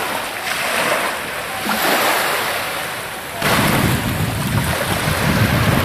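Small waves washing onto a pebbly shore, with wind blowing on the microphone. About three and a half seconds in, the wind rumble on the microphone suddenly gets louder and deeper.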